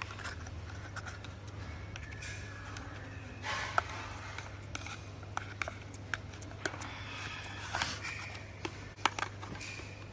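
Thin clear plastic tub crackling and clicking as fingers squeeze and flex it and peel it off the slime inside: many sharp clicks with short bursts of crackling.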